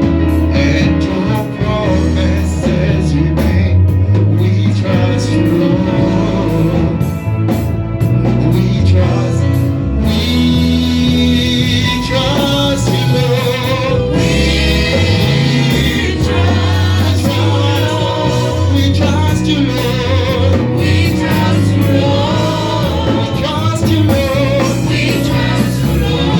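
Gospel praise music: singers backed by a band with a strong bass line, the sound filling out with more voices about ten seconds in.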